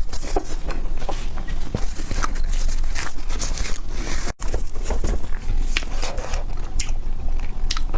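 Chewing crispy ice cream: a dense run of crunchy crackles and clicks, cut by a brief gap about halfway through.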